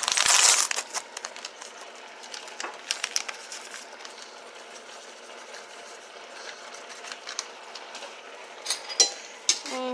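Pot of rice and water on the stove heating toward the boil: a faint steady crackle with scattered small pops and ticks. A brief rushing noise comes at the start.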